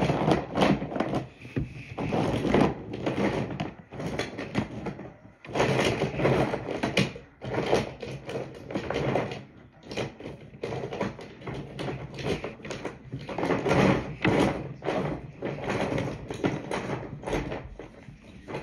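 Irregular rustling, scraping and light knocks of handling close to the microphone, as of fabric rubbing over it and small objects being moved about, coming in uneven bursts with short pauses.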